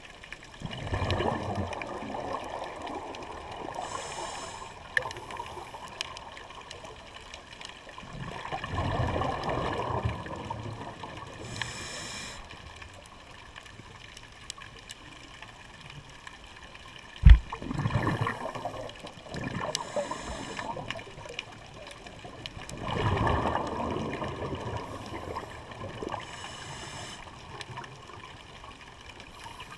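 Scuba diver breathing through a regulator underwater: about four rounds of exhaled bubbles rushing out, each followed a few seconds later by a short hiss of inhalation. A single sharp knock a little past halfway is the loudest sound.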